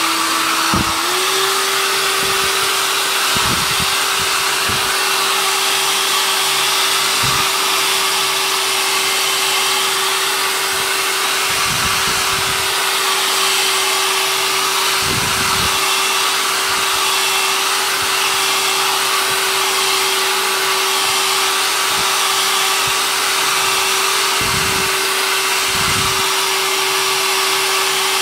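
Handheld hair dryer blowing steadily, heating the wetted back of a slack canvas to shrink it taut; its motor hum steps up slightly in pitch about a second in. A few brief low rumbles come and go over the airflow.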